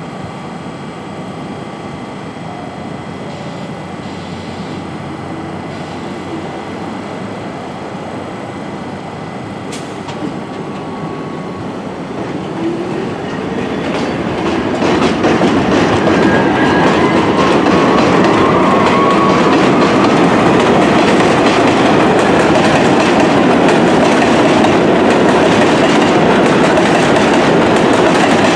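New York City Subway R62 train running over elevated steel track, its wheels rumbling and clattering. The sound swells about halfway through as the train comes alongside, with a faint wheel squeal soon after.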